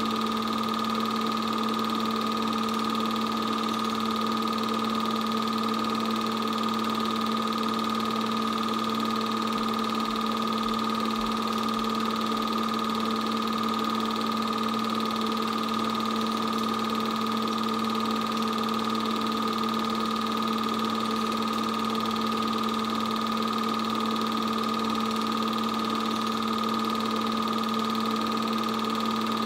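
8mm film projector running: a steady motor hum with whirring noise, unchanging in pitch and level.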